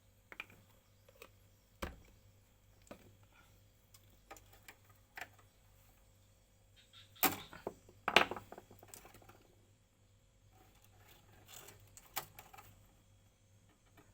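Irregular light clicks and knocks of tools and parts being handled, with two louder clattering bursts about seven and eight seconds in, over a faint steady hum.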